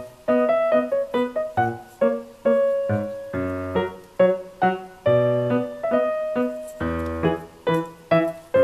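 Background music: a light keyboard melody in a piano sound, made of short, separate notes a few per second, with a low note under some of them.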